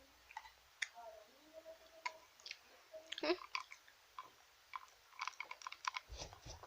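Chewing and crunching chocolate: a scattered run of small, crisp crunches and mouth clicks, with a dull bump about six seconds in.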